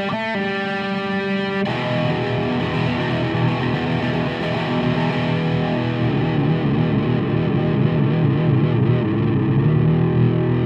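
Background music: distorted electric guitar with effects, in steady sustained chords.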